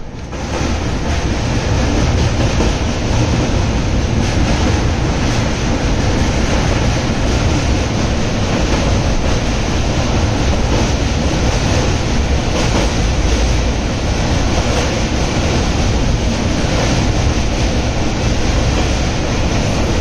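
Passenger train running across a railway bridge, heard from the open window: a steady, loud rumble and rattle of wheels on rails.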